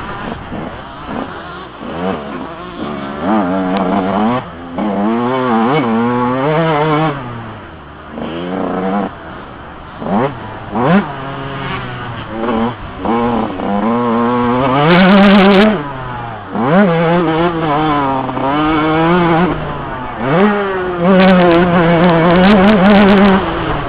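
Yamaha YZ125 two-stroke motocross engine revving hard and dropping off again and again as the bike accelerates, shifts and slows around the track, its pitch climbing and falling. It is at its loudest about halfway through and again near the end.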